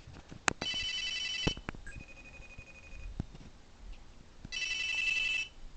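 A phone ringing for an incoming call: two ring bursts, each about a second long, about four seconds apart, with a fainter tone between them.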